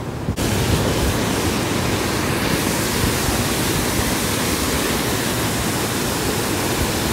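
Waterfall pouring into a pool of whitewater: a loud, steady rush of falling water that comes in suddenly just after the start, following a quieter wash of stream water.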